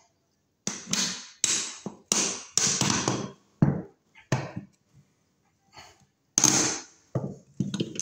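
Screwdriver and pliers scraping and clicking on a rusted screw in a steel outlet cover, in about a dozen short rasping strokes with pauses between. The screw is seized with rust and won't turn.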